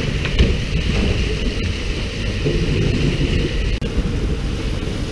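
Steady low rumble of a fishing boat's engine under the hiss of water splashing and spraying at the sea surface, with two sharp knocks.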